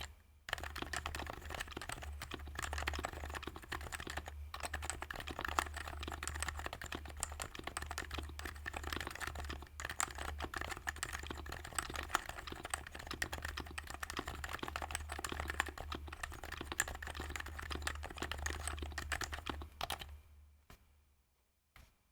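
Continuous fast typing on a Sho S60 v2 keyboard with HHKB Pro 2 Topre sliders and plate and OEM-profile HHKB keycaps. It stops about twenty seconds in, with one last faint click near the end.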